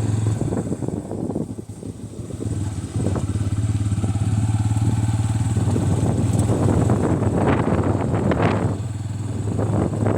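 Bajaj Pulsar N160's single-cylinder engine running while the motorcycle is ridden off road. The throttle eases off briefly twice in the first few seconds, then the engine is held steady and louder for most of the rest.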